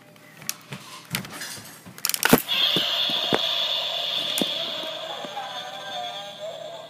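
Godzilla 2014 action figure's electronic atomic-breath sound effect from its built-in speaker: a sustained noisy blast with a wavering lower tone that starts about two and a half seconds in and slowly fades. A few knocks from handling the toy come just before it.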